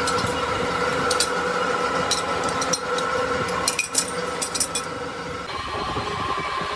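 Old metalworking machine tool running with a steady whine, with scattered sharp metallic clinks. The pitch of the whine drops a little about five and a half seconds in.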